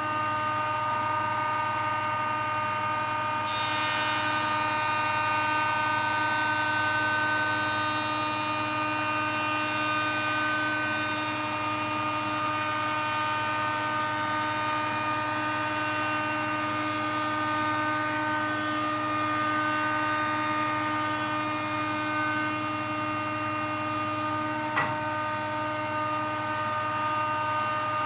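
Woodworking jointer running at speed with a steady motor hum, a poplar board fed across its cutterhead from about three seconds in to about twenty-two seconds in, adding a loud cutting hiss while the edge is cleaned up and squared; it then runs free again, with one sharp click near the end.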